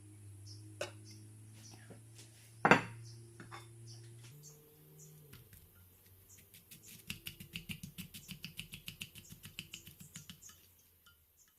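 Kitchen utensil sounds: a few sharp knocks of dishes over a low steady hum that stops about four to five seconds in, then a quick even run of light taps, about seven or eight a second, lasting some three seconds.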